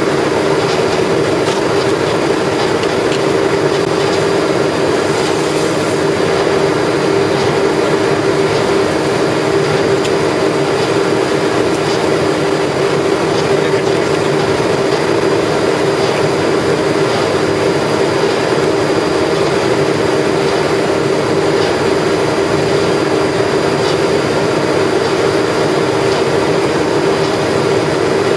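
Ice-slurry pumping rig running steadily while pumping a very high ice fraction slurry: a constant loud mechanical hum with one strong mid-pitched tone and a faint high whine above it.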